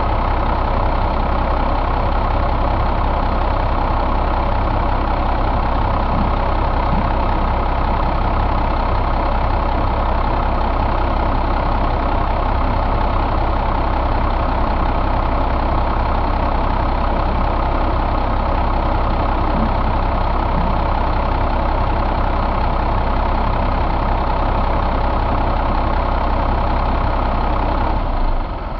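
1996 Cummins M11 inline-six diesel running steadily with no change in speed, then shut off near the end, the sound dying away.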